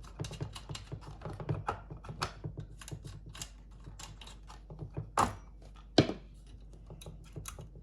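Rapid small metal clicks and rattles of a chainsaw chain and guide bar being handled and fitted together, with two sharper knocks about five and six seconds in.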